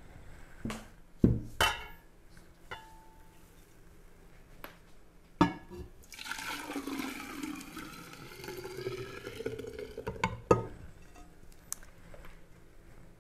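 Chocolate almond milk poured from a glass bowl into a glass pitcher, the stream running for about four seconds as the pitcher fills. Glassware knocks on the table a few times before and just after the pour.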